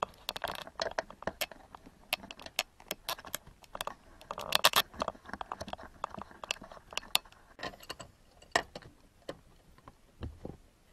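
Ratchet wrench clicking in short, irregular strokes as a nut on the third brake light bracket's stud is run down and tightened, with a denser, louder run of clicks about halfway through.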